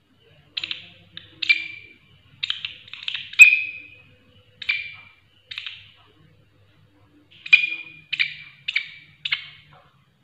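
Large green katydid (walang kerik) stridulating: about a dozen short, sharp chirps in irregular groups, each fading quickly, the loudest about three and a half seconds in, with a pause of a second or so in the middle.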